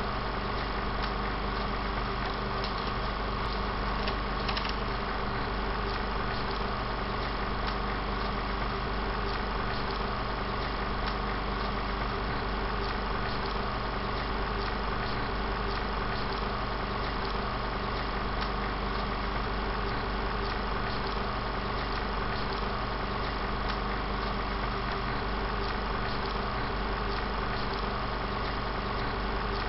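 16mm film projector running: a steady mechanical whir with a constant hum and faint even clatter, unchanging throughout.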